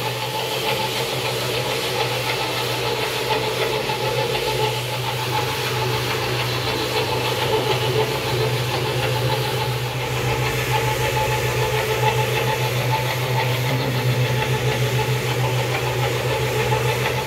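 Single-disc rotary floor scrubber running steadily over a soaked, soapy rug: a constant low motor hum with the wet scrubbing noise of the spinning head working the pile.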